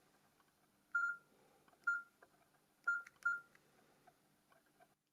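Nokia C5 keypad tones: four short, single-pitched beeps from the phone's speaker as keys are pressed to navigate its menus, with a few faint button clicks between them.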